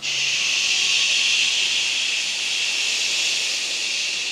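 A long, steady 'shh' breathed out through the teeth: the liver healing sound of a breathing exercise. It starts abruptly and holds without a break.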